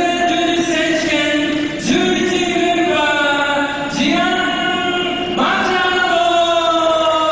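A choir chanting long held notes in phrases of about two seconds, each starting afresh. In the last phrase the pitch glides slowly downward.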